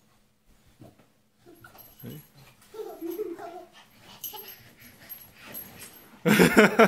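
Small dog whining, excited by a ball, with a loud burst of yapping near the end.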